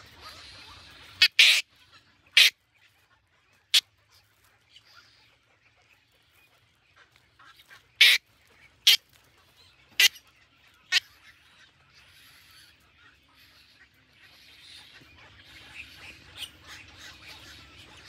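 Heron nestlings giving harsh begging squawks, about seven short loud calls spread over the first eleven seconds, some close together, then only faint background.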